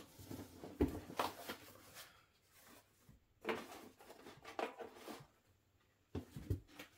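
Cardboard box and its packaging being rummaged through by hand: uneven rustles and light knocks as parts are moved, with a brief lull shortly before the end.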